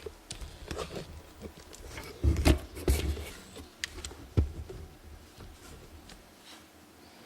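Handling noise from a camera being adjusted: irregular knocks, clicks and low bumps, loudest about two to three seconds in, then dying down.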